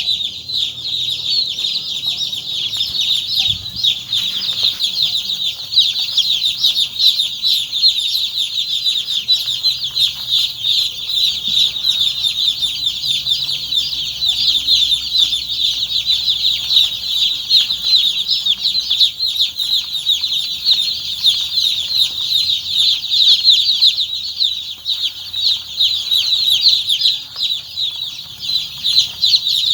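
A large flock of poultry chicks peeping continuously, many high, short calls overlapping into a dense, unbroken chorus.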